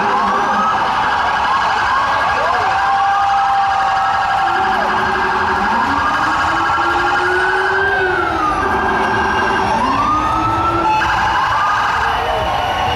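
Several vehicle sirens sounding together from a passing line of NYC Department of Correction vans. Short rising whoops repeat over one another, with slower wails that rise and fall, the longest peaking about seven seconds in.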